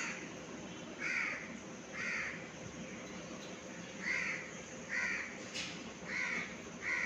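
Cockatiels giving harsh, squawking contact calls, one short call about every second with a gap in the middle.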